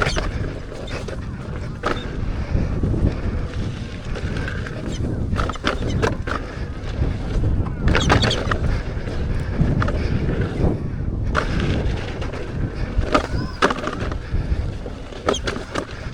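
Electric unicycle riding down a dirt trail: wind buffeting the microphone and the tyre rolling over dirt, with scattered clicks and knocks from stones and bumps.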